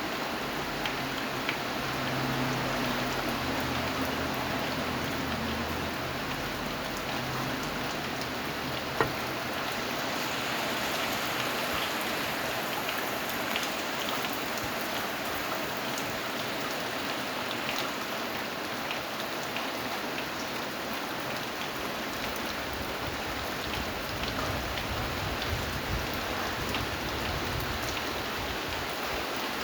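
Steady rain falling, with scattered individual drops ticking and one sharper drop tick about nine seconds in.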